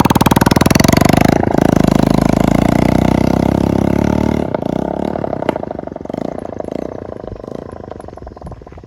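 Motorcycle engine running with its silencer removed, the open exhaust revved hard and loud for the first four seconds or so. About four and a half seconds in the throttle closes and the engine drops back to a quieter, uneven running.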